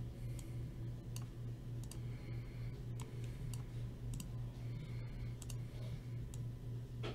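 Scattered light clicks of typing on a computer keyboard, irregularly spaced, over a steady low hum.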